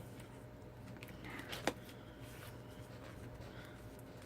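Faint handling of cardstock pieces on a work surface, with one short sharp tap a little under two seconds in.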